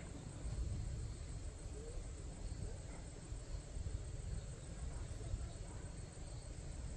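Insects chirping steadily in a high, even drone, over a low, uneven rumble.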